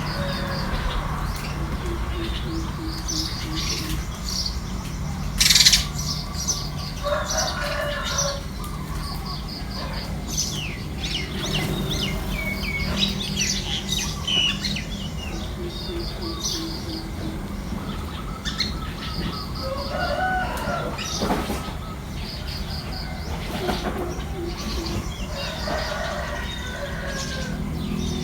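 Small birds chirping in quick repeated series, with chickens clucking now and then, over a steady low rumble. A brief loud rustle-like burst about five and a half seconds in.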